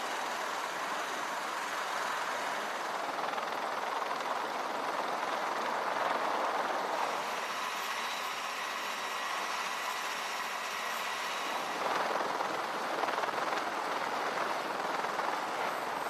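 Steady rushing noise of aircraft engines and rotors running on a ship's flight deck, without a clear pitch or beat.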